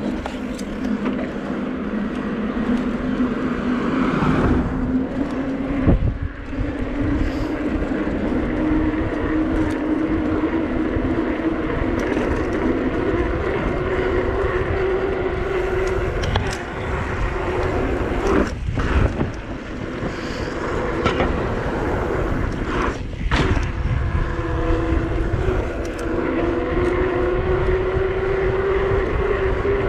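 Electric mountain bike riding along a paved road: a steady whine from the drive and knobby tyres slowly rising in pitch as the bike picks up speed, over wind and road rumble. The whine breaks off briefly twice past the middle.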